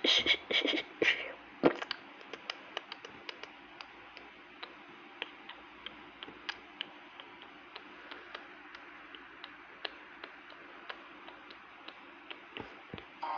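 A short burst of louder clattering with a ringing edge, then a long string of sharp, uneven clicks, about three a second, ending with two low thumps.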